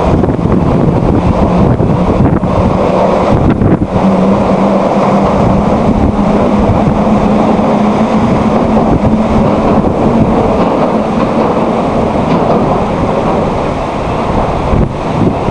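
Strong wind buffeting the microphone in a loud, constant rumble. A steady low hum rises out of it about four seconds in and fades away after about twelve seconds.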